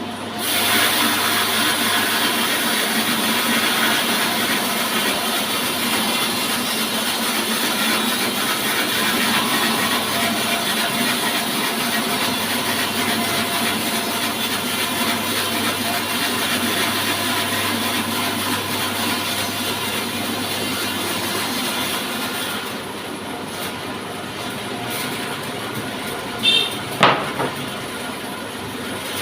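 Horizontal sawmill saw cutting through a log: a loud, even cutting noise starts about half a second in over the steady hum of the machine. It drops back to the quieter sound of the saw running near the end, followed by a few sharp knocks.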